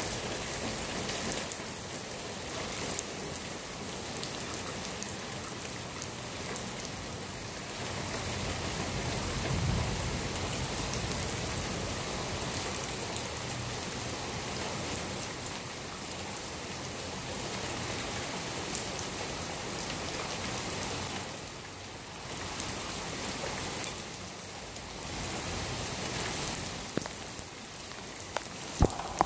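Heavy rain pouring steadily in a thunderstorm, with a low rumble swelling about eight to twelve seconds in.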